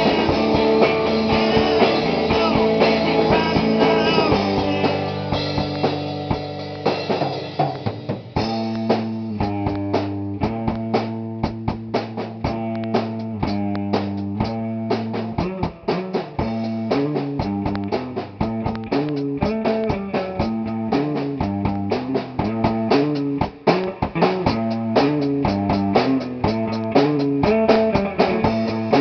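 Rock band playing at rehearsal: guitar chords over a drum kit. About eight seconds in, the drums settle into a steady, hard-hit beat under the guitar.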